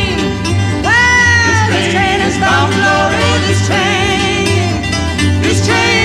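Folk song: a woman singing with vibrato over acoustic guitar, the guitar's bass notes keeping a steady beat.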